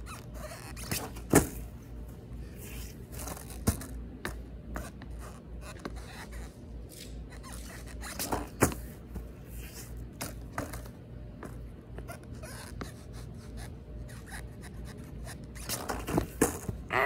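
Skateboard being popped and flicked for kickflip attempts on grass: sharp knocks of the board's tail and wheels hitting the ground and shoes landing, with shoes scraping on the grip tape. The knocks come singly a few seconds apart, the loudest about a second in, and bunch together near the end as a flip lands.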